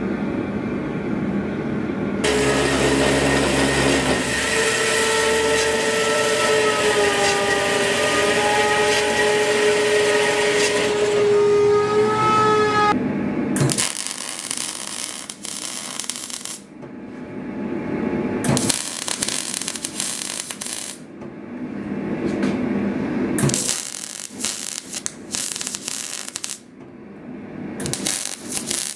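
MIG welder laying weld in bursts of a few seconds each, with a crackling sizzle that stops and starts. Before the welding, for about ten seconds, a louder steady roar with several wavering whistle-like tones.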